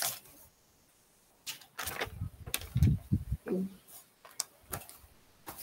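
Scattered sharp clicks and a few dull low thumps from hands working a computer's mouse and keyboard.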